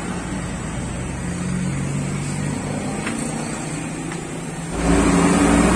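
A motor vehicle engine running in the background, its pitch drifting slowly up and down. About five seconds in, a louder, deeper engine hum comes in.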